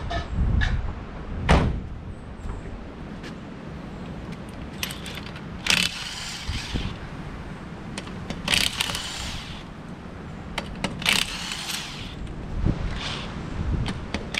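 Cordless DeWalt impact wrench taking off wheel lug nuts in short bursts of about a second each, five in all, after a single knock near the start.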